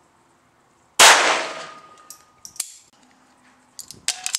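A single shot from a Lorcin L-22 .22 LR semi-auto pistol about a second in, ringing briefly as it fades, followed by a few small metallic clicks. Near the end comes a quick run of sharp metallic clacks from handling the pistol.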